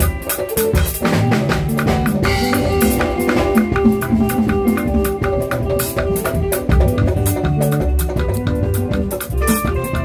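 Live band music: a drum kit played with sticks, keeping a busy beat with cymbal hits, under a keyboard melody.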